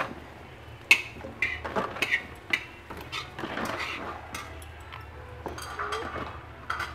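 Chunks of winter melon dropped one after another into a steel stockpot of pork hock broth, giving a series of irregular sharp knocks and clinks against the pot.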